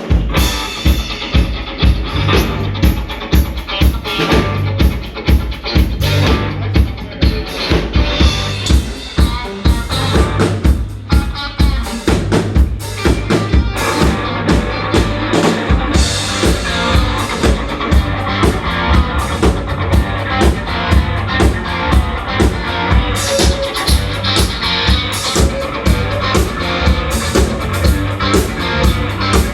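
Band playing live, led by a drum kit keeping a steady beat of about two hits a second, with bass and snare; the sound fills out with more instruments about halfway through.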